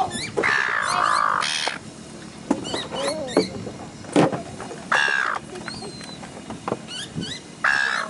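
A flock of gulls calling: many short rising calls, with loud harsh squawks about half a second in, lasting over a second, and again about five seconds in.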